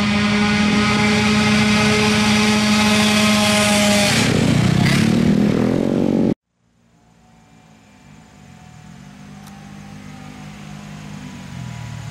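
Racing scooter engine at full throttle, held at a steady high pitch as it runs down the drag strip, then dropping in pitch as it passes about four seconds in. The sound cuts off abruptly about six seconds in, and scooter engines fade back in, revving at the start line near the end.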